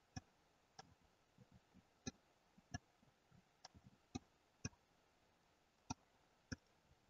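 Faint computer mouse button clicks, about ten short clicks at irregular intervals over near silence.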